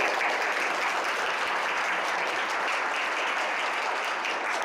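Audience applauding, steady throughout.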